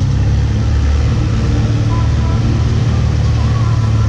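An engine running steadily with a loud, low hum.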